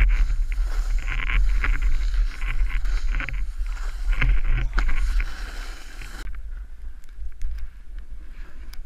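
Wind buffeting an action camera's microphone on a fast ski run, with skis scraping and hissing over packed snow in repeated bursts through the turns. About six seconds in the hiss cuts off abruptly and the rumble eases.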